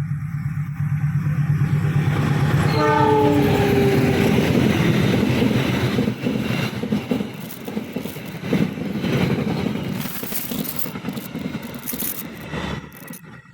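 A diesel-hauled train passes close by, its engine running with a heavy low rumble, and the horn sounds once, briefly, about three seconds in. The train cars then rattle past with wheels clacking over the rail joints, and the sound fades out near the end.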